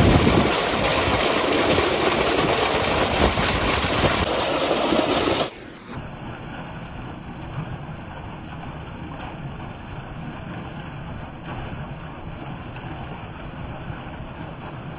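Water pouring from an outlet into a small holding pond: a steady rushing splash. About five and a half seconds in it drops suddenly to a quieter, duller rush.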